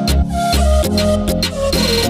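Background music with a steady beat over held chords and a bass line.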